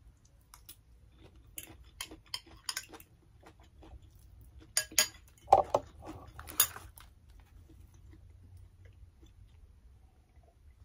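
A metal fork clinking and scraping against a ceramic bowl while eating salad, with chewing. The clicks are scattered, the loudest a cluster a little past the middle, then it goes quiet.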